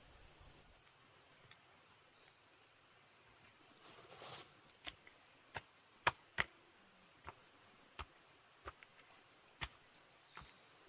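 A series of sharp chopping knocks, about nine of them at uneven intervals of half a second to a second, the two loudest close together midway. A steady high insect buzz runs underneath.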